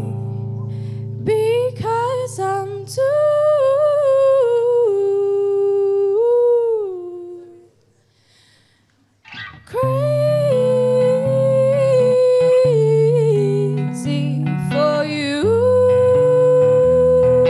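A young woman singing a slow ballad into a microphone over instrumental accompaniment, with long held notes that glide between pitches. Voice and music drop to near silence for about a second and a half around eight seconds in, then resume.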